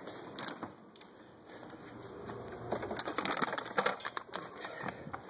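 Rummaging in a kitchen cupboard for cat food: a couple of clicks near the start, then a busy run of clicks, knocks and rustling from about three seconds in.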